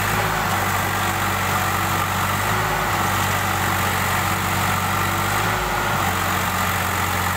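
Diesel tractor engines running steadily, one of them straining to pull a loaded trolley stuck in mud. The engine note dips briefly about three times.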